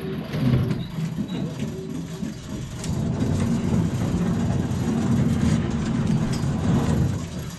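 Fishing boat's Detroit Series 60 diesel engine running steadily, growing louder about two and a half seconds in and easing back near the end.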